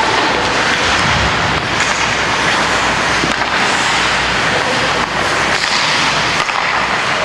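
Ice hockey game din in a rink: a steady, loud rushing noise, with a few faint knocks.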